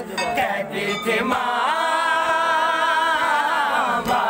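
A crowd of mourners chanting an Urdu noha lament, with one long held sung note from about a second in. Sharp slaps of chest-beating (matam) come a few times near the start and near the end.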